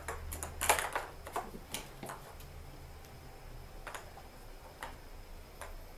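Light clicks and taps from kittens playing with small plastic balls and a plastic toy: a quick run of clicks in the first two seconds, the loudest just under a second in, then single ticks about a second apart.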